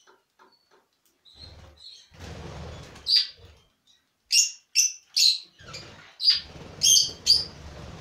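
A flock of budgerigars chirping: a string of short, sharp, high calls, loudest and thickest in the second half, over the rustle and flutter of wings as birds take off near the end.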